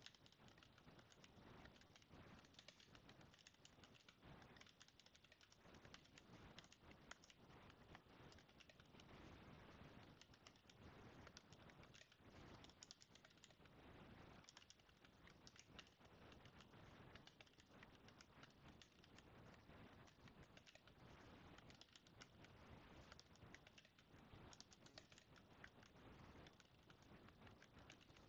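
Computer keyboard being typed on at a fast, steady tempo: a faint, irregular stream of keystroke clicks.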